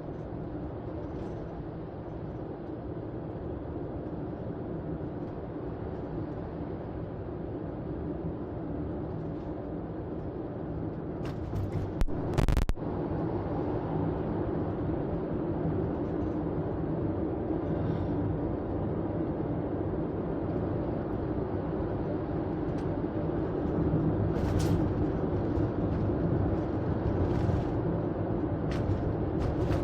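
Steady road and engine noise of a car driving, heard from inside the cabin, slowly growing louder. About twelve seconds in there is one brief loud thump.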